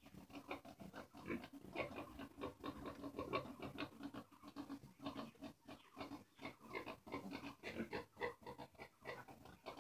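Piglets grunting: many short calls in quick succession, one after another without a break.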